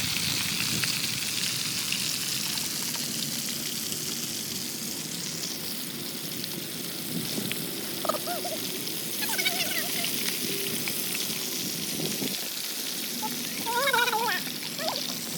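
Food frying in hot oil, a steady sizzle, with brief voices over it a few times.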